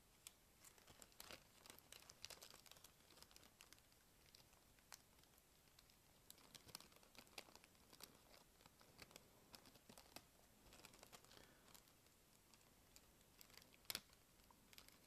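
Faint, scattered crinkling and small clicks of thin plastic film and sticker strips being handled, as white adhesive strips are folded and pressed inside an RC blimp's plastic fin envelopes. One sharper click comes near the end.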